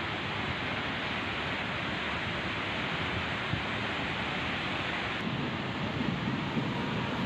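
Steady rushing noise of a storm, with gusts of wind buffeting the microphone from about five seconds in.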